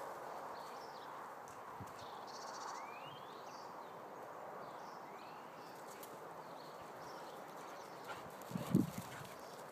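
Footfalls of a Briard puppy running on garden grass, over a steady outdoor hush with a couple of short bird chirps. Near the end come a few dull, louder thuds as the puppy bounds up close.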